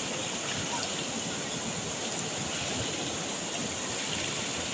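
Fast mountain river rushing over boulders in white-water rapids, a steady, unbroken rush of water.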